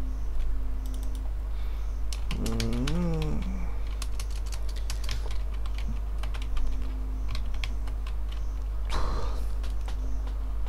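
Typing on a computer keyboard: irregular runs of keystroke clicks over a steady low hum, with a short murmur from a man's voice about three seconds in.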